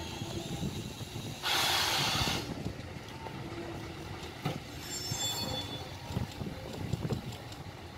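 Vintage FS electric locomotive hauling freight wagons slowly over depot track: a steady low rumble of wheels on rail, with a loud burst of air hiss about a second and a half in and a brief high wheel squeal a little past the middle.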